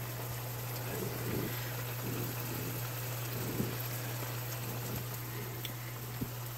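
Red wine and mushroom reduction sauce simmering in a pan, a steady bubbling hiss with a few faint soft pops, over a constant low hum.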